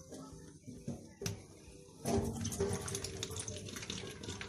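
Soaking water pouring from a plastic bottle of cracked green olives into a stainless-steel sink, starting about two seconds in and running steadily. This is the daily draining of the olives' water during curing. A single sharp click comes about a second in, as the bottle's cap is being unscrewed.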